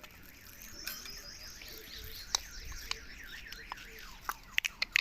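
Indian ringneck parakeet chattering softly in quick, wavering warbles, then a run of sharp clicks near the end.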